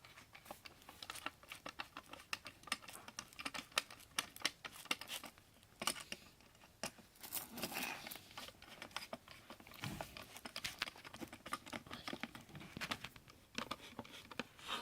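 Irregular small clicks, taps and rustling as fan parts and screws are handled and tightened by hand.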